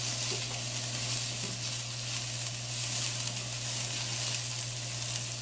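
Chicken pieces sizzling in a nonstick frying pan while a slotted spatula stirs and scrapes them around the pan.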